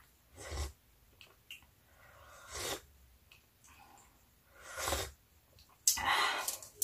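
Sipping coffee from a mug: a few short, airy slurps a second or two apart, the last and longest as the mug comes down.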